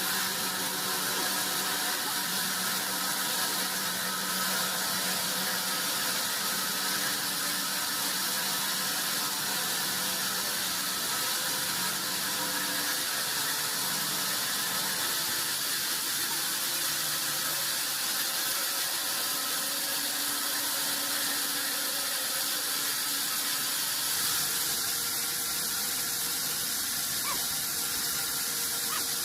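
Sawmill wood-processing machinery running with a steady high-pitched whine and hiss.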